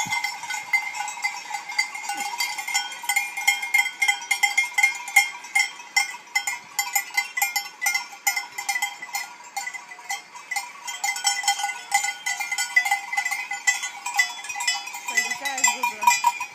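Many goat bells clanking and ringing continuously and irregularly as a herd of goats moves along.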